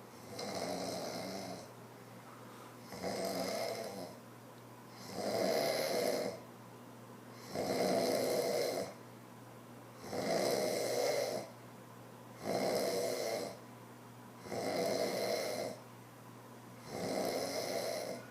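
A sleeping man snoring in a slow, regular rhythm: one snore about every two and a half seconds, eight in a row, each lasting about a second.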